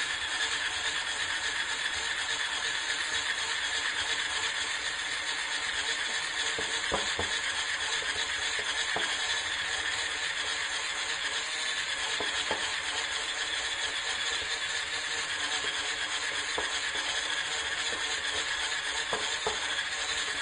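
Electric hand mixer running steadily at one speed, its beaters whisking cream cheese and double cream in a glass bowl, with a few light clicks along the way.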